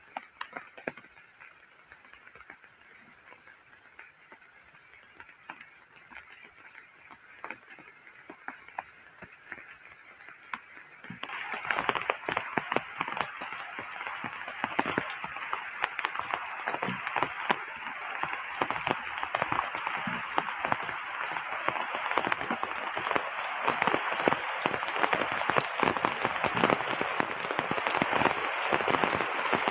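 Heavy rain pattering steadily, a dense mass of small drops that becomes much louder about eleven seconds in. A faint, steady high-pitched tone runs beneath it.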